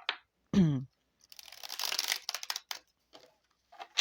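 Tarot cards being shuffled by hand: a dense papery riffle lasting about a second and a half, with scattered card taps near the end. A short vocal sound comes just before the riffle.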